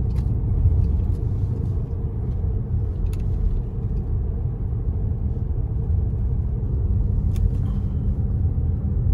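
Steady low rumble of road and engine noise inside a moving car's cabin, with a faint click about three seconds in and another later on.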